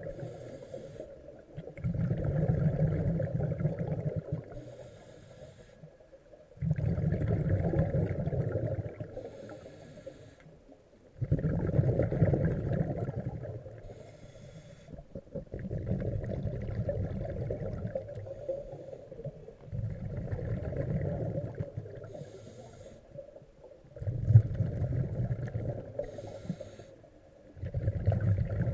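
Scuba diver breathing through a regulator underwater: a brief hiss of each inhale, then a longer rush of exhaled bubbles, repeating about every four to five seconds, six or seven breaths in all.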